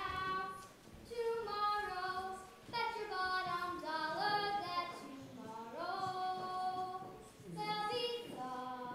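A young girl singing solo, without accompaniment, in long held notes that slide between pitches, with short breaks between phrases.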